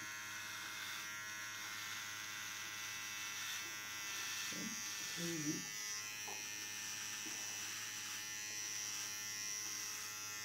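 Cordless electric hair clipper buzzing steadily as it shaves a baby's head close. A couple of short voice sounds come through about halfway.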